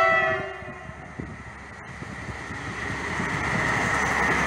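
Rail maintenance draisine sounding a brief horn chord, the RP1 warning signal, which dies away within the first second. Then the rumble of the draisine passing close swells steadily louder.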